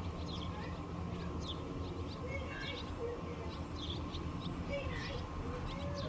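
Wild birds chirping: many short calls in quick succession over a steady low hum.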